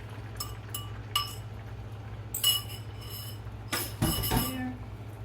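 A fork clinking and tapping against a glass bowl of beaten eggs, a few light ringing taps early on, then louder clinks, and a brief louder clatter about four seconds in.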